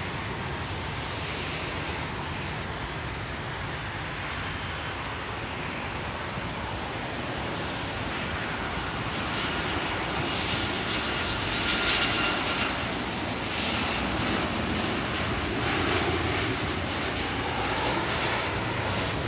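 Boeing 737-800's CFM56-7B turbofan engines on final approach, a steady jet rumble that grows louder as the airliner comes in low. A high whine rises over the rumble about halfway through.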